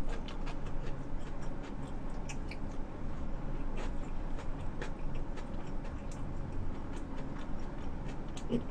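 Chewing a mouthful of sushi close to the microphone: irregular small clicks and smacks of the mouth.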